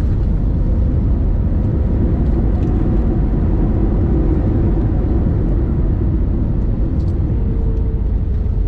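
Cabin noise of an Airbus A321neo on its landing rollout, spoilers up: a loud, steady roar from its Pratt & Whitney geared turbofan engines and the wheels on the runway, swelling slightly about halfway through.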